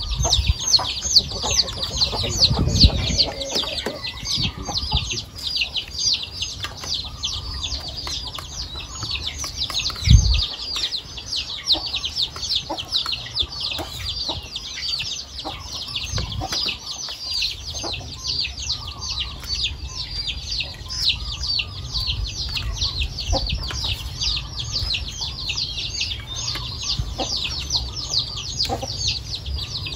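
A steady, rapid high-pitched chirping runs throughout, several chirps a second. Under it are light clinks of metal spoons on plates, and a dull thump about ten seconds in.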